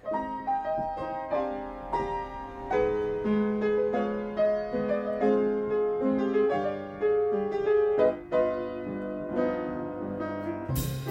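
Jazz piano playing a solo introduction of single notes and chords, with the drum kit's cymbals and the bass coming in right at the end.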